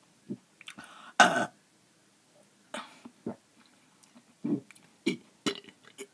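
A woman's short burps and throat sounds as she gulps air to bring up a burp. There is one louder burst about a second in, then a string of smaller ones.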